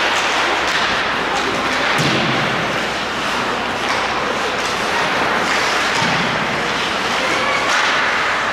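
Ice hockey play in an indoor rink: sharp clacks and thuds of sticks and puck against the boards at irregular moments, over a steady background of spectators' voices.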